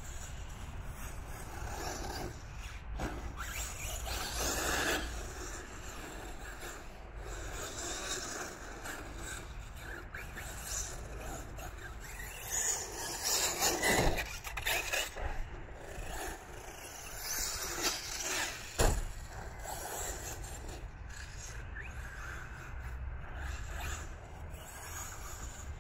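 Electric 1/8-scale RC buggies driving around an artificial-turf track, their motors whining and rising and falling as they pass, loudest about halfway through. A single sharp knock comes a little later.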